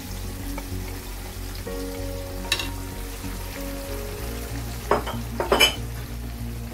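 Marinated chicken sizzling in oil in a kadhai as a wooden spatula stirs it. The spatula knocks on the pan about two and a half seconds in and twice around five seconds in.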